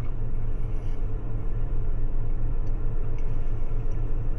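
Steady low rumble and hum, with a few faint soft clicks of chewing as a soft cookie is eaten.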